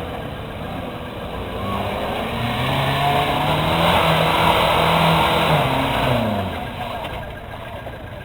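Off-road 4x4 engine revving up under load, held high for a few seconds, then easing off.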